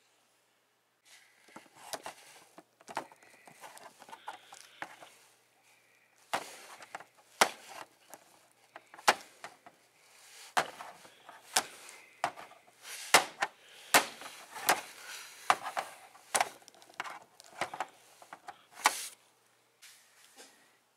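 Hard plastic action figures knocked and clacked together and against a tabletop play mat by hand, a string of irregular sharp knocks about one or two a second over the soft rustle of handling.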